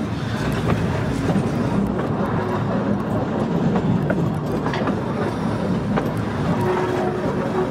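Volk's Electric Railway car running along its narrow-gauge track, with a steady rumble of wheels on rail and scattered clicks over rail joints and points. A faint steady tone comes in near the end.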